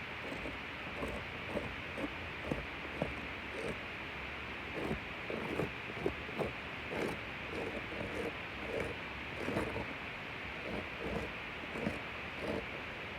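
Irregular light scuffs and taps on asphalt roof shingles over a steady background hiss.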